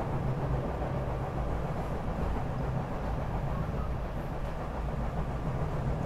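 SEPTA Regional Rail electric commuter train running at speed, heard from inside the car: a steady low rumble.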